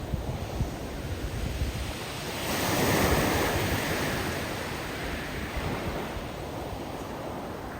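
Surf on a steep beach of loose cobbles: a wave surges in about two seconds in, then a long hiss as the backwash drags and tumbles the loose rocks, fading slowly.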